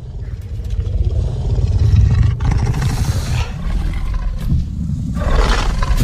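Carnotaurus creature sound effect: a deep growl that swells over the first two seconds, with a raspy roar about three seconds in and a louder, harsher roar near the end.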